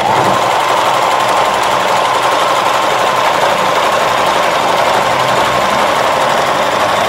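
Willpex WP653 household sewing machine running steadily at speed, stitching the final side of a four-step buttonhole.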